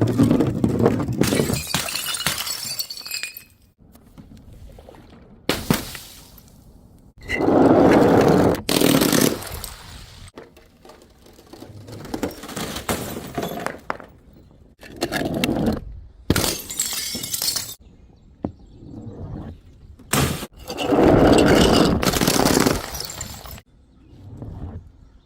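Glass bottles smashing and shattering, a string of several separate breaks one after another, each starting and stopping suddenly.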